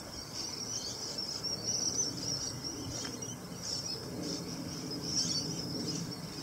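Insects chirring: a steady, high-pitched buzzing chorus that flickers slightly, over a faint low background hum.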